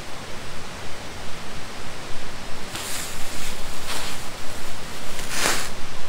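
Steady rushing outdoor noise with a flickering low rumble, broken by three brief louder swishes about three, four and five and a half seconds in.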